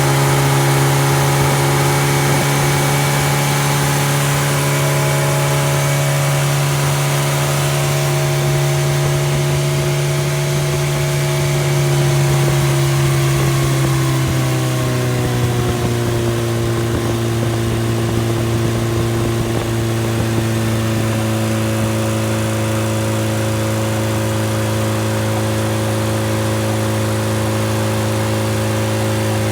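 Freshly rebuilt engine running with no muffler, its ignition timing only roughly set. Its speed eases down a little about halfway through, then holds steady.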